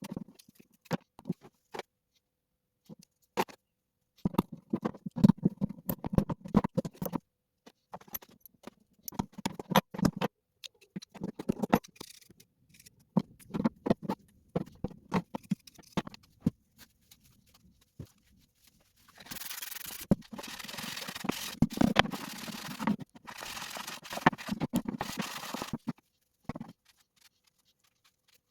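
Hand work on a pair of garden shears: clicks, taps and rubbing and scraping of metal. About two-thirds of the way in, a steady hiss lasts several seconds, pauses briefly and resumes before stopping.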